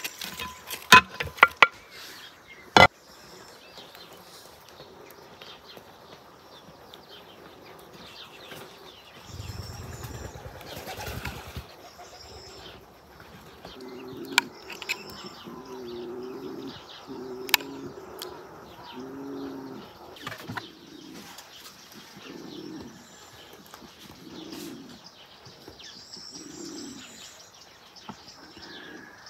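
A wooden spoon clicks and knocks against a ceramic dish a few times at the start. After that come birds: a run of low, repeated cooing calls with high chirps over them.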